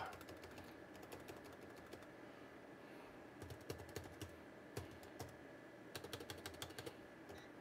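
Computer keyboard being typed on in short, irregular runs of keystrokes, faint.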